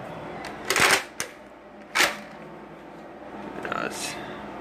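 Nerf Rival foam-ball blaster being worked: two loud mechanical clacks about a second apart, with a small click between them and a softer rustle near the end.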